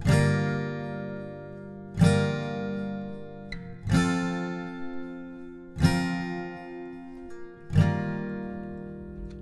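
Background music: slow strummed chords, one about every two seconds, each left to ring out and fade.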